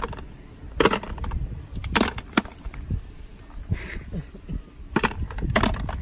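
Walnuts dropped into a plastic bucket: several sharp knocks and clacks at uneven intervals, the loudest about one, two, five and five and a half seconds in.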